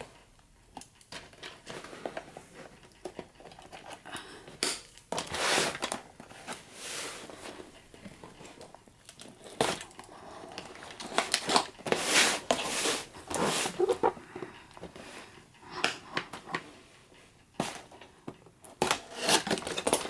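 Cardboard toy-blaster box being opened by hand, with irregular tearing, rustling and crinkling of cardboard and packaging.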